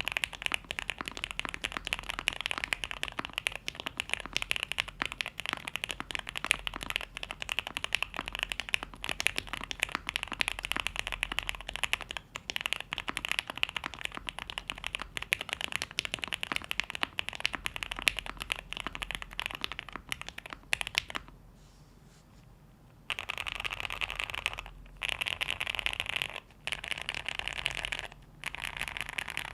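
QK65 custom mechanical keyboard with lubed JWK Black linear switches on a POM plate and ABS doubleshot keycaps, typed on quickly and continuously. About two-thirds of the way through it stops for about two seconds, then comes back in several short runs of rapid keystrokes.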